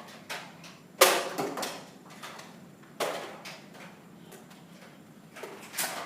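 Several sharp knocks and thuds in a small room: a loud one about a second in, another about three seconds in and one near the end, with a few fainter knocks between them.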